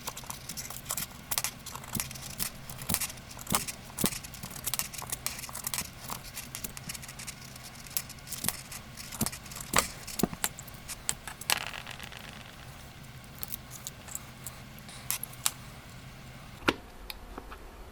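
Old tape wrapped around a pocket knife's handle being cut and pried at, giving irregular crackles, clicks and scrapes. A steady low hum underneath stops after a sharp click near the end.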